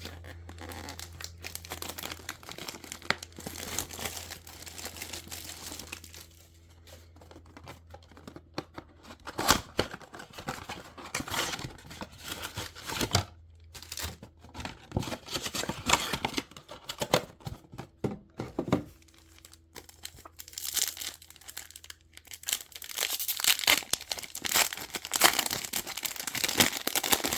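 Plastic wrapping on a trading-card blaster box being torn open and crinkled by hand, in an irregular run of rustles and rips.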